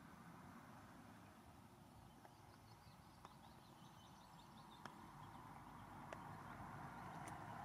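Near silence: faint outdoor ambience with a faint high twittering in the first half and a few soft, sharp clicks.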